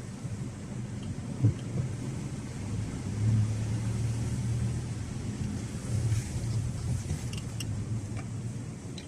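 Car being driven, a steady low rumble that swells between about three and five seconds in, with a sharp knock about a second and a half in and a few light clicks near the end; the owner is recording it as an abnormal noise while driving.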